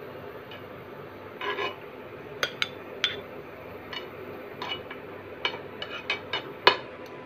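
Steel spoon clinking and scraping against a tawa (flat griddle pan) while an omelette cooks: a dozen or so irregular sharp clinks, the loudest near the end.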